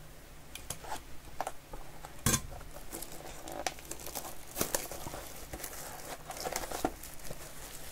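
Clear plastic shrink wrap being torn and peeled off a trading-card box, crinkling, with scattered crackles and one sharper snap about two seconds in.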